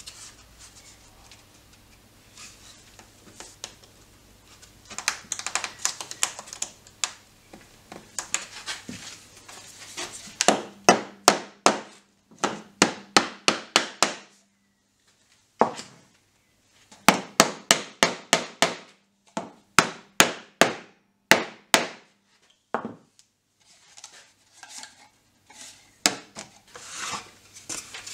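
Wooden mallet striking a thin wooden piece set into a pine board, in runs of quick sharp knocks about four a second with short pauses between runs. Lighter clattering and rubbing of wood is heard before the knocks and again near the end.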